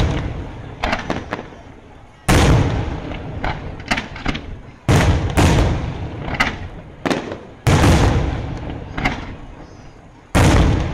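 Daytime fireworks: aerial shells bursting in the sky with a loud boom every two to three seconds, each one trailing off slowly, and smaller sharp cracks and pops between the big reports.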